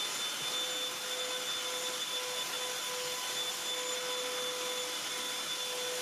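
Black+Decker BDH2000PL 20-volt cordless handheld pivot vacuum running steadily: a constant high motor whine over an even rush of air.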